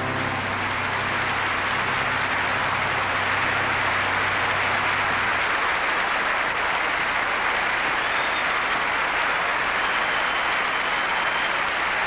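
Audience applauding steadily at the end of a song, while the orchestra's last low chord dies away over the first five seconds or so.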